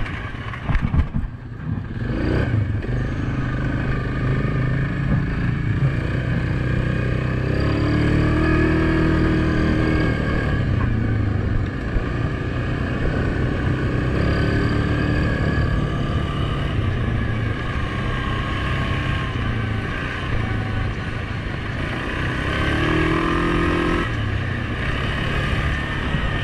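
2019 Suzuki King Quad 750 ATV's single-cylinder engine running under way on a dirt trail, its pitch rising and falling with the throttle, with a few knocks from the machine over bumps about a second in.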